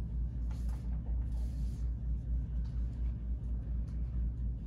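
Steady low room rumble with no speech, and soft rustling of paper notes about half a second in and again around a second and a half in.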